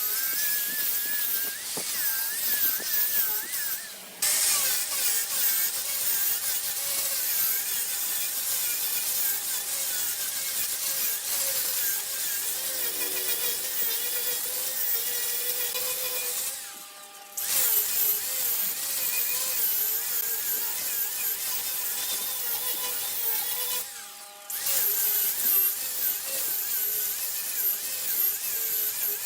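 Wood being cut on a lathe: a turning tool shaving a spinning blank, a steady scraping hiss with a wavering whine in it. The sound briefly drops away three times.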